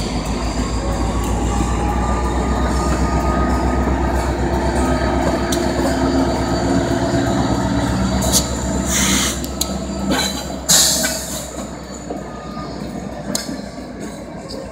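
CSX freight train of tank cars and covered hoppers rolling slowly past, a steady low rumble of wheels on rail with drawn-out wheel squeal. Two sharp, loud squeals come past the middle, the second the loudest.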